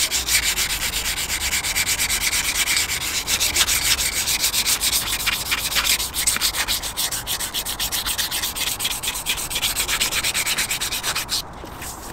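Fine sandpaper rubbed by hand over an alloy wheel rim in quick back-and-forth strokes, several a second, a steady scratchy rasp that stops near the end. It is the smoothing pass, taking out the scratches left by coarser sandpaper before primer.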